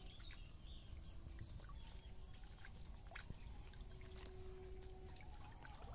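Faint outdoor ambience: small birds chirping now and then over a low rumble, with a few light clicks and rustles.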